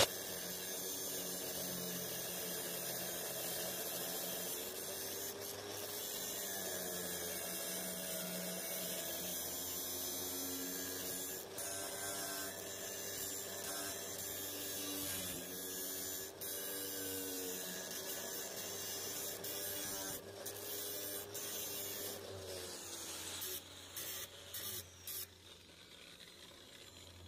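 An electric power tool motor running steadily, its pitch sagging and recovering as it works under load, then stopping and restarting in short bursts before going quiet near the end.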